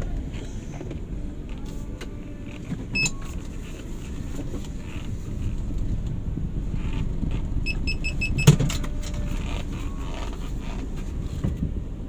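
Steady low rumble of a car, with a click about three seconds in. About two-thirds of the way through comes a quick run of short high beeps, and right after them a loud knock.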